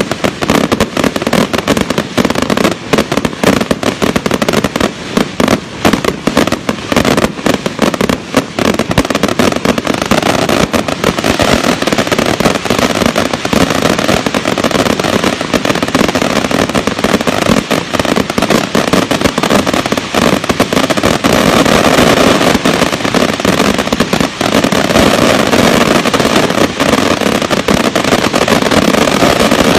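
Fireworks going off in a rapid, unbroken barrage of bangs and crackles, the separate cracks thickening into a dense continuous crackle after about ten seconds.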